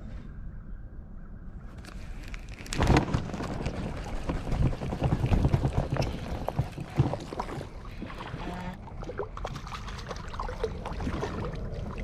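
Clothing brushing against the camera microphone while gear is handled in a kayak. It is close, loud rustling with sharp clicks and knocks that starts about three seconds in and eases off after about eight seconds.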